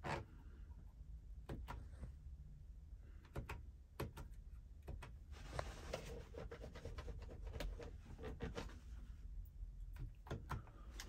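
Dashboard radio buttons being pressed, a dozen or so scattered clicks, with a stretch of rustling in the middle and a low steady hum underneath.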